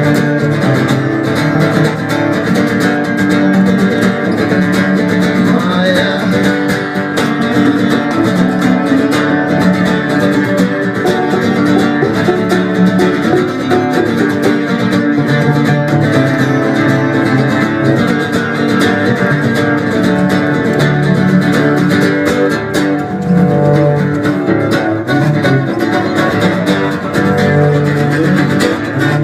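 Acoustic guitar and a low string accompaniment playing an instrumental passage of a slow song, steady and unbroken, with no singing.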